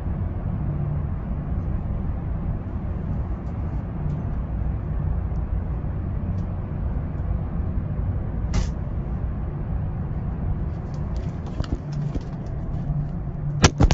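Steady low rumble of a car idling, heard from inside the cabin. Near the end come light clicks and then a couple of sharp knocks as the phone is handled.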